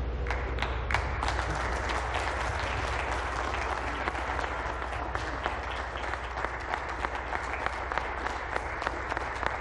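A small group of people applauding, with many sharp individual claps standing out, over a low steady hum.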